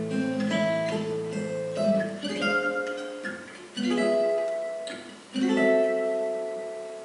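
Solo Maccaferri-style oval-hole acoustic guitar played live, picking single notes over a held low bass note, then two struck chords, about four and five and a half seconds in, that ring out and slowly fade.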